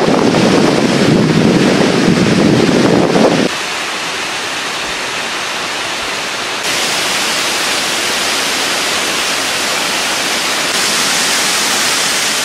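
Waterfall rushing as a steady, loud wash of water noise. There is a heavier low rumble for the first few seconds, which stops suddenly; the sound then turns brighter in steps about halfway through and again near the end.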